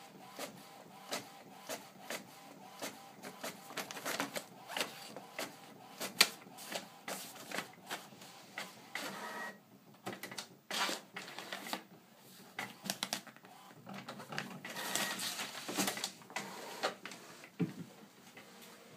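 Printer running and feeding paper, with many irregular mechanical clicks and a faint steady motor hum, and a longer rustle about fifteen seconds in.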